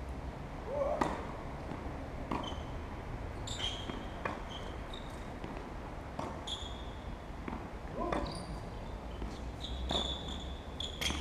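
Tennis ball being struck by rackets and bouncing on the court during a rally: sharp knocks roughly every one to two seconds, with short high-pitched squeaks between them.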